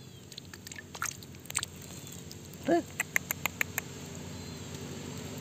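Shallow stream water running steadily, with scattered sharp clicks, one short squeaky pitched sound about halfway through, and then a quick run of about six clicks.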